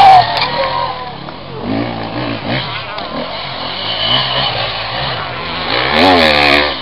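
Off-road enduro motorcycle engines revving, their pitch rising and falling with the throttle, loudest near the end.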